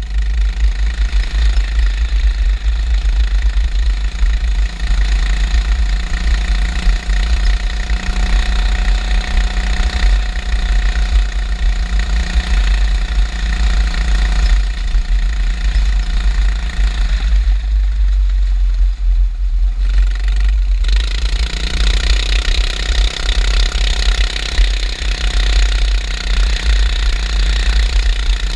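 Junior sprint car engine running hard on a dirt oval, heard from a camera mounted in the car's cage, over a heavy constant low rumble. The engine note drops away for about three seconds past the middle, then comes back up stronger.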